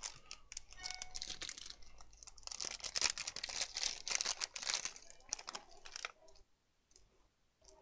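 Hands rummaging through spare laptop DC charging ports: small parts clicking and their packaging rustling. It is busiest for the first six seconds or so, then only a few faint clicks.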